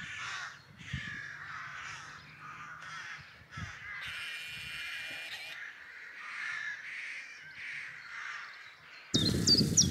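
A rook colony cawing: many harsh caws overlapping and repeating from birds at their nests high in the trees. Near the end it switches suddenly to a much louder steady noise, with a small bird chirping repeatedly over it.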